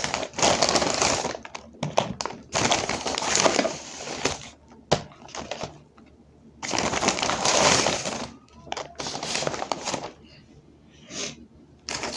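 McDonald's paper bag and cardboard fries carton being handled, rustling and crinkling in four or five bursts with pauses between, and one sharp click about five seconds in.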